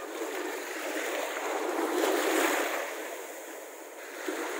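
Small Baltic Sea waves washing up onto the sand at the water's edge, the surf swelling to its loudest a little past halfway through and then ebbing.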